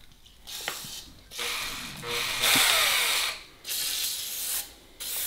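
Cordless drill spinning a ball-type flex hone in an engine's cylinder bore, mixed with the hiss of an aerosol can spraying lubricant into the bore. It comes in about four short runs with brief pauses between them, the loudest about halfway through.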